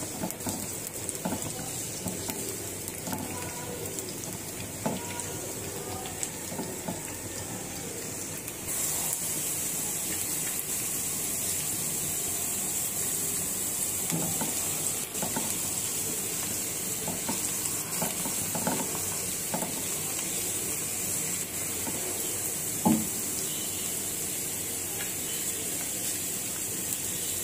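Sliced onions sizzling in hot oil in a karahi, stirred with a silicone spatula that scrapes and taps against the pan. The sizzle grows louder about nine seconds in, and there is one sharper knock later on.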